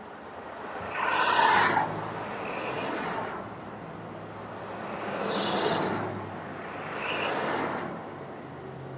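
Vehicles passing on the street, heard from inside a parked car: three swells of road noise that rise and fade, the loudest about a second in.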